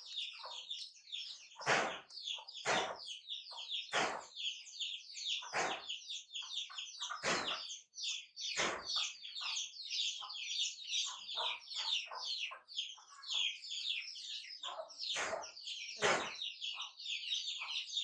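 Small birds chirping constantly in a dense, overlapping chatter, with several brief thumps or knocks in between.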